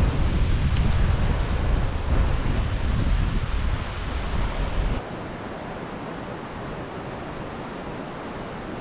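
Wind buffeting the microphone of a bicycle moving along a gravel road, a loud low rumbling rush. About five seconds in it cuts off suddenly to a quieter, steady rushing hiss.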